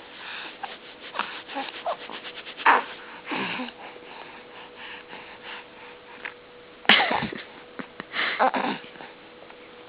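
A baby making weird noises: a string of short breathy squeaks, sniffs and sputters, the loudest about seven seconds in.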